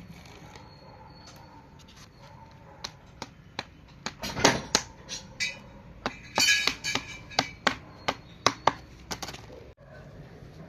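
Metal engine parts and hand tools clinking and knocking together, about a dozen sharp, irregular strikes spread over several seconds, as valvetrain parts are handled and set in place.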